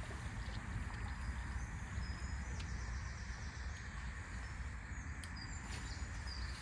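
Steady outdoor background noise beside a flowing river, with a low rumble and faint bird chirps now and then.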